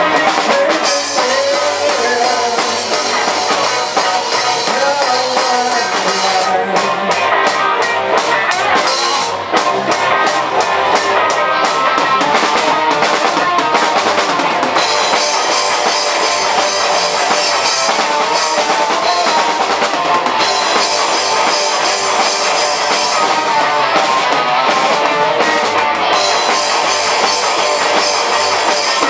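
Live rock band playing: a drum kit with rapid, even cymbal strokes and electric guitars, loud and steady.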